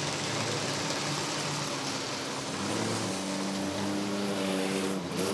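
Several cars and pickup trucks running around an asphalt oval while towing boats on trailers, heard as a steady noisy wash. About halfway in, several steady engine notes stand out more clearly.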